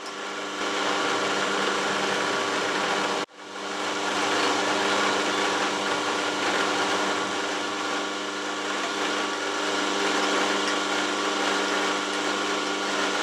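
Warco Super Major milling machine running, its 12 mm carbide cutter milling a flat on a mild-steel bar: a steady motor hum with the hiss of cutting. The sound cuts out abruptly just after three seconds and comes straight back.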